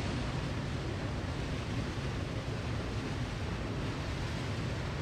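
Small waterfall pouring into a rock pool: a steady rushing of falling water, with a deep rumble underneath.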